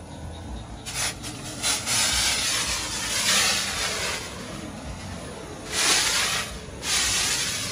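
Homemade thermal fogger hissing in spurts as liquid from the pump sprayer is forced into the gas-heated metal tube and flashes into a jet of fog. A few short bursts about a second in, a long hiss from about two seconds, then two more bursts near the end.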